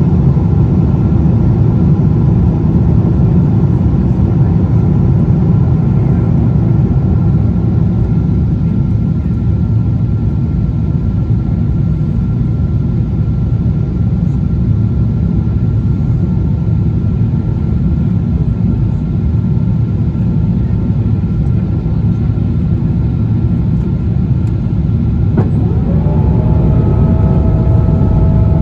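Boeing 777 cabin noise on approach: a loud, steady rumble of engines and airflow, with faint steady whines above it. Near the end a click is followed by new whining tones that rise a little and then hold.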